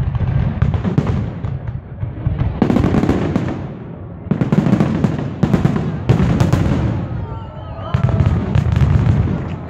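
Fireworks display: aerial shells bursting in quick volleys of sharp bangs and crackling, over a dense low boom, coming in loud waves a second or two apart.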